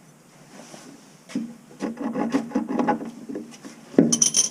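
Hand tools working on metal fittings: a run of quick clicks and scrapes from a spanner, then a sharp metallic clink with a brief ring near the end.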